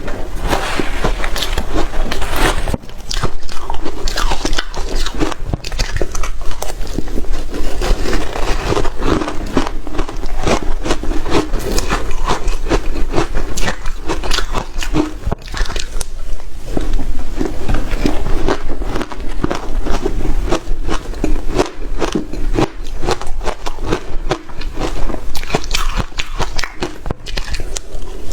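Hard shaved ice being bitten and chewed close to the microphone: dense, continuous, irregular crunching and crackling.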